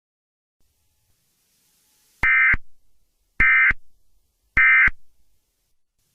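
Emergency Alert System end-of-message signal: three short bursts of SAME digital data tones about a second apart, starting about two seconds in, each trailing off in a brief fading echo.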